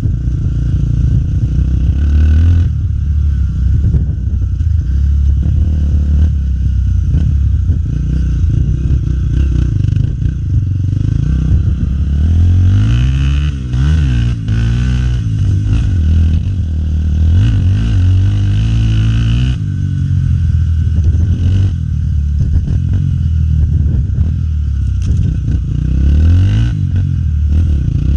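Honda Tornado 250 trail bike's single-cylinder four-stroke engine running under way off-road, its pitch rising and falling again and again as the throttle is opened and closed.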